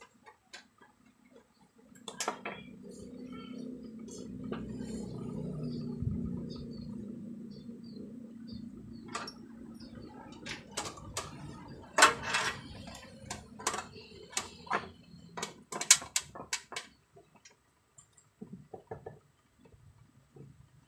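Irregular clicks, taps and light metallic clatter of small electrical parts, a potentiometer and a sheet-metal cover being handled and fitted together, busiest in the middle. A low rumble underlies the first half.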